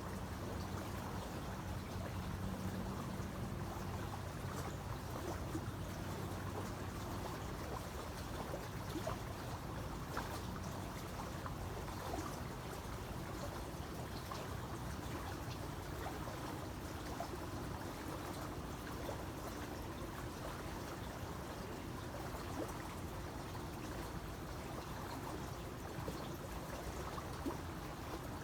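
Creek water running and trickling over stones, a steady rush with small splashes. A faint low hum lies underneath at times, strongest in the first several seconds.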